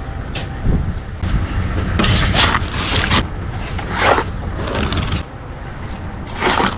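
Hand tools scraping and raking through loose asphalt mix in several rough strokes, the longest about two seconds in, over the steady low running of an engine.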